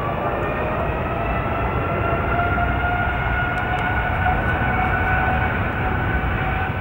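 Boeing 787 jet engines spooling up as the takeoff roll begins: a steady rumble with a whine that rises slowly in pitch and grows a little louder.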